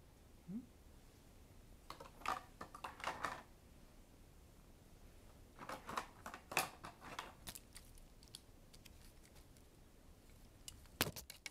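Scattered light clicks and taps, in clusters a few seconds apart, as cats paw at a plastic butterfly toy and move about on a wooden floor.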